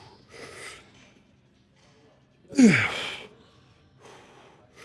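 A man's heavy breathing under exertion during a set of cable tricep extensions: short forceful breaths every second or two, the loudest a voiced exhale about two and a half seconds in that falls in pitch.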